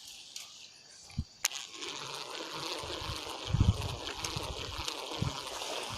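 Floodwater of a river running steadily, with one sharp click about a second and a half in and a few low thuds past the middle.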